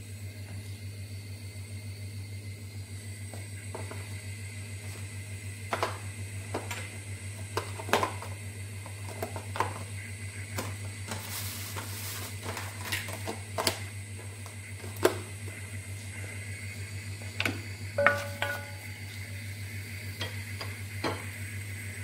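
Stainless steel pot of cut onion and garlic on the stove, with scattered clicks and light metallic knocks from the pot over a steady low hum. A few knocks ring briefly; the loudest comes about 18 seconds in.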